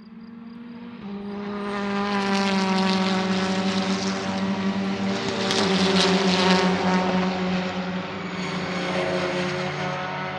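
Race car going past at speed: a steady engine note grows louder, drops in pitch about halfway through as it passes, then eases off.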